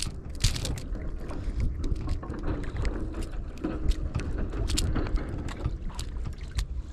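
Steady wind rumble on the microphone aboard a small boat, with scattered sharp clicks and knocks from handling the freshly landed catch.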